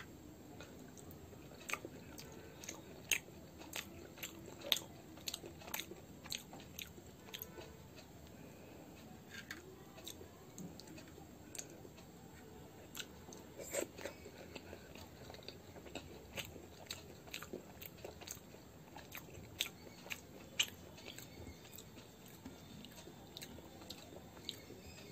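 Close-up chewing and biting of cauliflower-stuffed paratha dipped in curd, with sharp, wet mouth clicks coming at irregular intervals.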